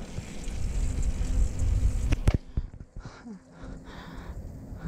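Low wind rumble on the microphone while riding, then a single sharp click a little over two seconds in, after which the rumble drops away and it goes much quieter.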